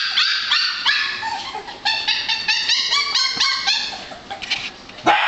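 A litter of six-week-old Scottish Terrier puppies yipping and barking, high-pitched calls several a second that thin out and fade in the last second or so, with a sharp knock near the end.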